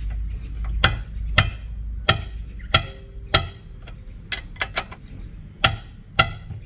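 A 17 mm combination spanner clinking on a tight nut and the motorcycle's metal as it is worked round: about ten sharp metallic clinks, spaced irregularly.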